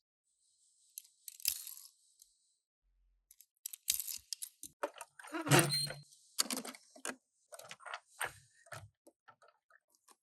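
Toy packaging being opened and handled: a short rustle, then a run of crinkles, clicks and crackles of plastic and cardboard. The loudest part comes about halfway through, with a low knock.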